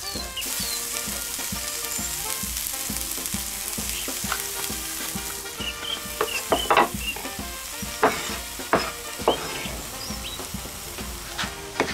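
Sliced onions sizzling in hot fat in a frying pan, stirred with a wooden spoon, with a steady hiss. Several sharper knocks and scrapes of the spoon against the pan come about halfway through.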